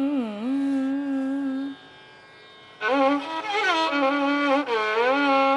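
A woman's held sung note, bending in pitch, for about the first second and a half. After a short pause, a bowed violin enters about three seconds in, playing a Carnatic phrase with sliding ornaments.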